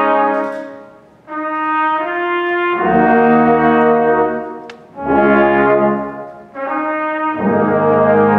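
Brass quintet of French horns, trumpet, trombone and tuba playing slow, held chords in short phrases that swell and die away, each followed by a new entry. The tuba's low notes come in under the chords about three seconds in and again near the end.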